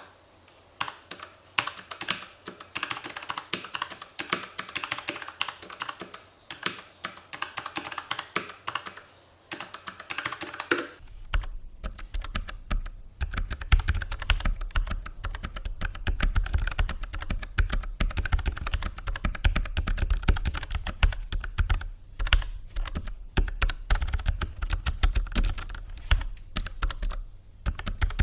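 Fast continuous typing on a Logicool MX Mechanical Mini keyboard with Kailh low-profile blue (clicky) switches, a dense run of sharp key clicks. About eleven seconds in, a deep low rumble comes in under the clicks.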